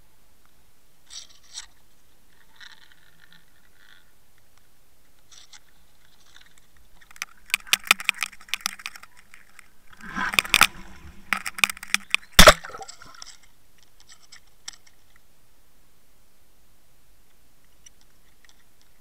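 Scraping, crunching and knocking from an underwater camera being handled and brushed against something. The scrapes run from about seven to thirteen seconds in, with one sharp knock about twelve and a half seconds in that is the loudest. There are a few faint clicks before and after.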